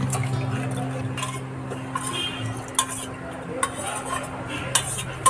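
A metal spoon clinks and scrapes against a pressure cooker pot as boiled meat is tipped and stirred into a thick masala, with sharp knocks every second or so. A low steady hum runs underneath and stops about four and a half seconds in.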